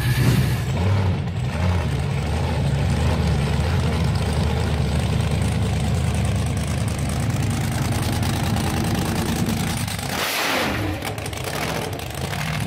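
Supercharged V8 with a roots-type blower and twin carburettors in a Chevrolet El Camino, running at a steady idle, then revving up sharply about ten seconds in as the car pulls away.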